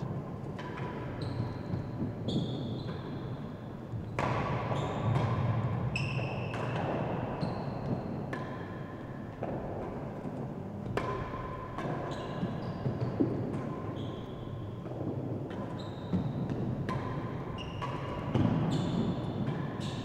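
A real tennis rally: the hard, heavy ball knocking off gut-strung racquets, the walls, the penthouse roof and the floor. The knocks come irregularly, about one to two a second, each echoing in the enclosed court.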